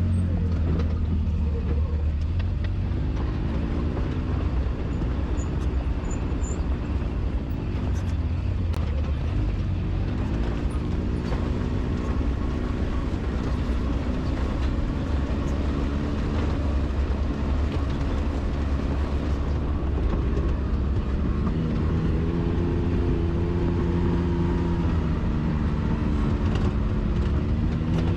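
Side-by-side UTV engine running steadily over a trail, its revs rising and falling several times as the throttle is worked, with a constant low drivetrain rumble.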